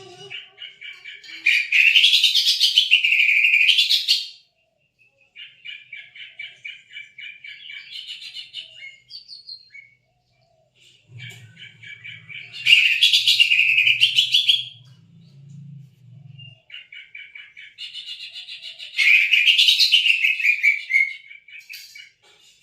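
Cucak ijo (green leafbird) singing: rapid trilled chattering phrases that break three times into loud, a few seconds long song bursts sweeping up and down in pitch.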